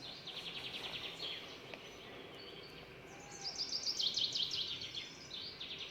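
A small bird chirping in rapid high trills: a short trill at the start, a longer run of quick notes that steps down in pitch a little past the middle, and another short trill near the end.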